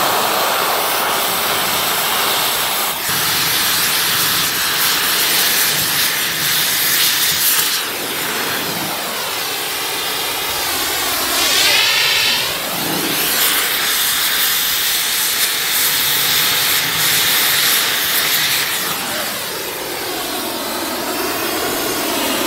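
QCC 4900 Series powder cutting torch cutting through stainless steel and cast iron: a loud, steady hiss of the oxygen jet and flame. Iron powder fed into the flame lets it cut these metals, which a standard torch handles poorly. The sound changes abruptly about three and eight seconds in.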